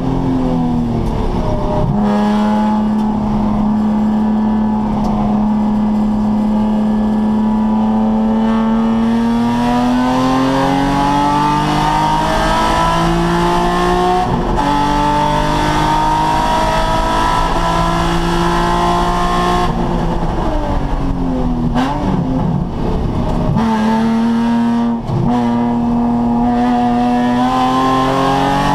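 Nissan 350Z's 3.5-litre V6 engine under hard driving on a road course. It holds a steady note, pulls up through the revs, drops at a gear change about 14 seconds in and climbs again. Around 20 seconds in the revs fall away with a quick blip, then settle to a steady note near the end.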